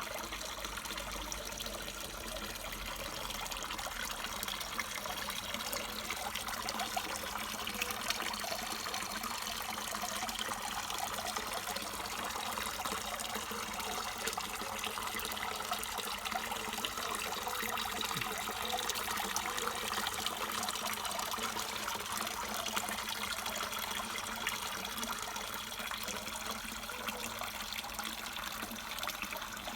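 Water trickling steadily into a garden pond.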